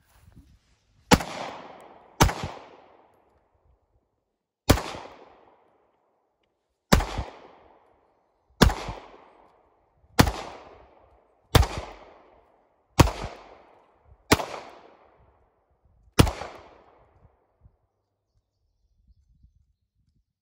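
Pistol fired slowly, one shot at a time: about ten shots spaced one to two and a half seconds apart, each followed by a short echo.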